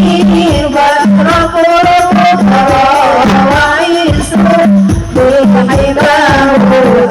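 Sholawat devotional song: a singer's wavering melody over hadroh-style frame-drum percussion and a repeating low bass note.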